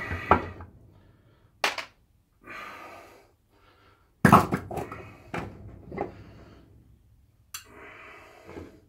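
Metal clunks and knocks of steel gears and shafts as the mainshaft and its gears are lifted out of a Holden M20 four-speed gearbox case and set down on the bench, with handling noise between them. The knocks come one at a time, the loudest about four seconds in.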